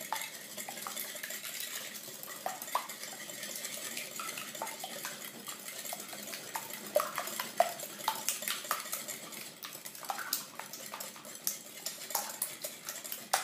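Wire whisk beating raw eggs in a glass mixing bowl: a steady swish with many quick clicks of the wires against the glass.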